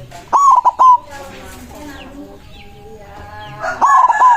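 White zebra dove (perkutut) cooing: a quick run of three loud notes about a third of a second in, and another loud run starting near the end. Roosters crowing and small birds chirping sound behind it.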